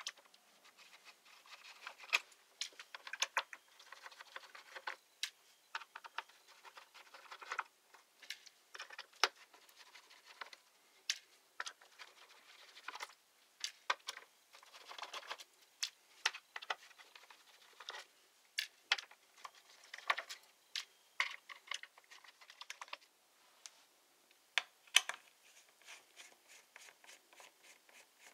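Irregular clicks, taps and short scrapes of hands and small tools working on a laptop's plastic casing and parts.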